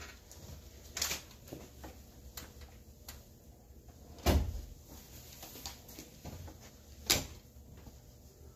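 Three dull knocks or bumps, about a second in, just past four seconds in and about seven seconds in, the middle one loudest and deepest, with fainter clicks between them.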